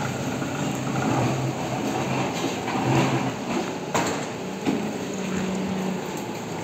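A forklift engine running steadily, its pitch shifting partway through, with a sharp knock about four seconds in.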